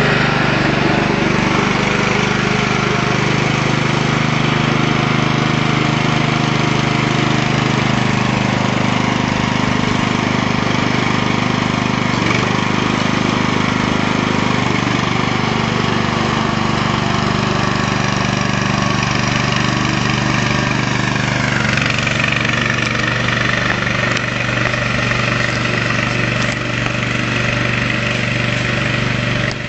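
Masport ride-on lawnmower engine running steadily; a little over two-thirds of the way through its pitch drops and settles at a lower, steady note.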